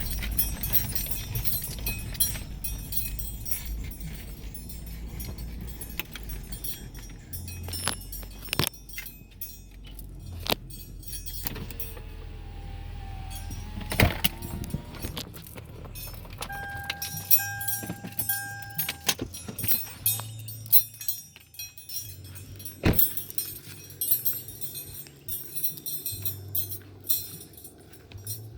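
Keys jangling and clicking with handling knocks, over a low vehicle engine rumble that stops a little past halfway. Just after the rumble ends, a steady electronic beep sounds for about two seconds.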